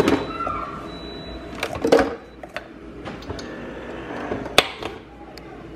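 Nespresso Vertuo capsule machine being loaded by hand: plastic clicks and knocks as an aluminium capsule is set in the brew head and the lid is closed and latched. The sharpest click comes near the end.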